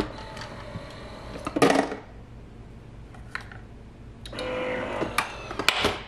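Plastic clicks and clunks of a Nespresso Vertuo Plus coffee machine's lid being opened by hand and shut again, with a louder rattling clatter about one and a half seconds in and a quick run of clicks near the end as the lid latches.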